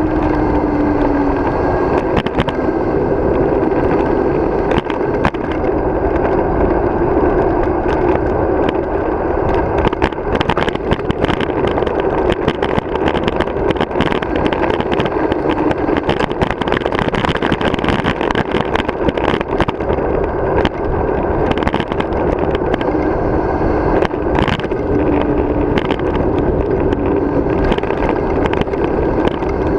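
Wind rushing over the microphone of a camera on a bicycle descending a paved road at speed, with a steady road hum and frequent short knocks and rattles from bumps in the road.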